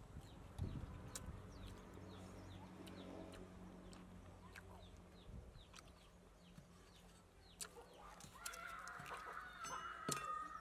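A chicken calling for about two seconds near the end, over scattered light taps of a cleaver slicing on a woven bamboo tray.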